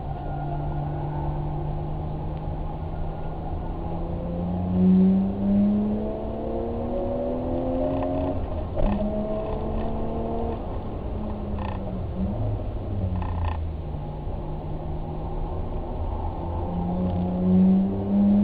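Car engine under way, its note climbing under acceleration, dropping suddenly about nine seconds in, sinking again around twelve seconds, then climbing once more near the end.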